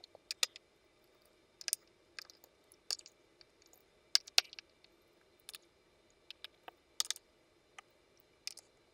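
Screwdriver backing out the small screws of the metal control plate on an Ernie Ball Music Man StingRay bass: irregular light metallic clicks and ticks as the driver works and the screws are set down.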